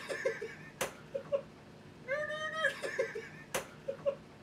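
A high-pitched, drawn-out wordless cry with short giggles around it, and a sharp knock of a meat cleaver on a cutting board. The cry, giggles and knock come round again about three seconds later, so there are two knocks in all.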